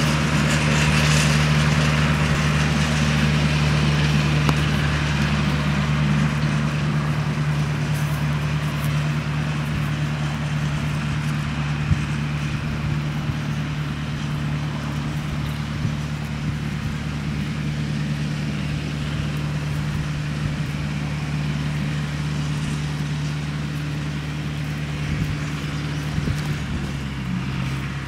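A motor running steadily: a low, even hum with a hiss over it. The hum drops slightly in pitch near the end.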